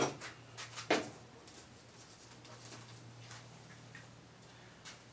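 Quiet spell with one sharp click about a second in and a few fainter ticks, over a faint steady low hum.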